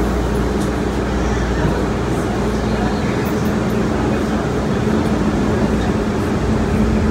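MBTA Green Line light-rail car running through the subway tunnel, heard from inside the car: a steady rumble with a constant hum, the deepest part of the rumble dropping away about three seconds in.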